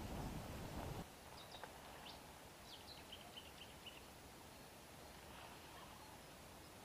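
Rushing wind noise on the microphone that cuts off abruptly about a second in, leaving faint outdoor quiet with a few short, high bird chirps over the next few seconds.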